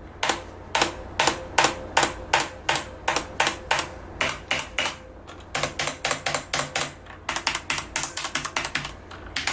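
Typing on a Corsair STRAFE mechanical keyboard with Cherry MX Red switches, keys struck hard in an even series of clacks, about three a second, then a faster run after a brief pause about five seconds in. Each stroke carries a metallic spring ping, the switch spring rattle that the owner finds very grating.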